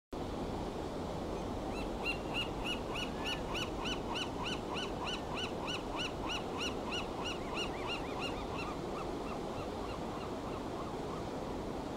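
Steady rush of ocean surf, with a bird giving a long run of sharp, arching calls, about three a second, starting about two seconds in and slowing and fading out by about nine seconds.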